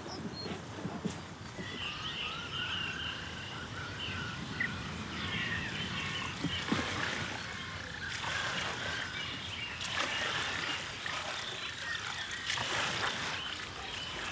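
Marsh ambience of frogs and birds calling in warbling chirps over a steady outdoor background, with some faint trickling water.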